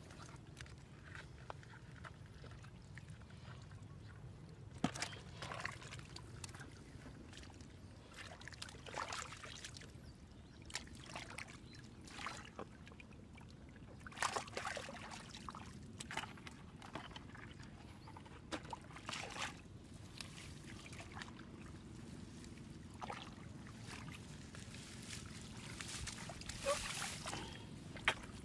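Hands digging and pressing through wet mud and shallow water: irregular faint squelches and small splashes, a few louder ones about five seconds in, around fourteen seconds, and near the end.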